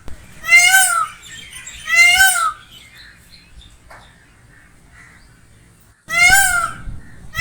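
Peacock (Indian peafowl) giving loud, honking calls, each rising and falling in pitch: two calls about a second and a half apart, a pause of several seconds, then another call near the end.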